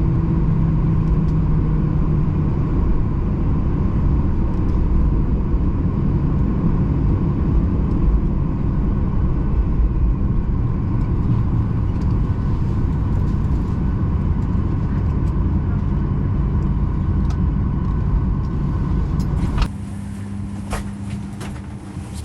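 Boeing 737-800 cabin noise while taxiing after landing: a loud, steady low rumble with a hum from the engines. Near the end it cuts off suddenly to a quieter steady hum with a few sharp clicks.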